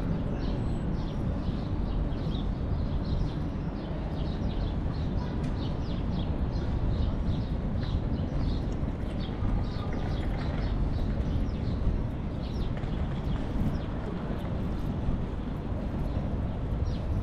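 Steady low rumble of wind and road noise while riding a bicycle, with many short high chirps scattered throughout.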